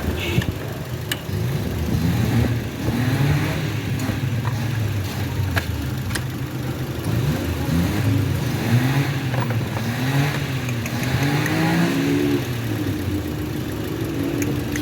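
Toyota Corolla GLI's four-cylinder engine running with a misfire, its speed rising and falling unevenly rather than holding steady. A few light clicks stand out over it.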